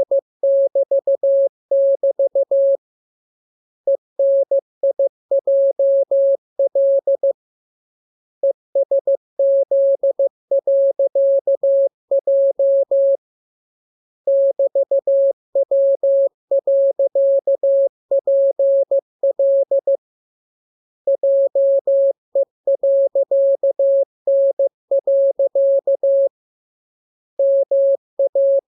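Morse code sent as a single steady, mid-pitched tone, keyed in quick dots and dashes. The characters come in runs several seconds long, separated by pauses of about a second: code-practice groups of the letters being learned.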